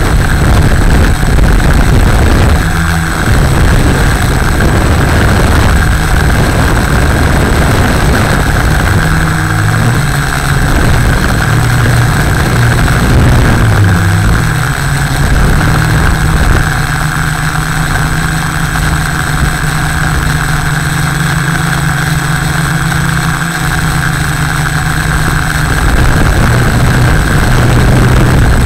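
Tarot Y550 hexacopter's motors and propellers running steadily in flight, heard from a camera mounted on the airframe, over a constant low rumble. Their pitch wavers up and down between about 9 and 15 seconds in, then holds steady.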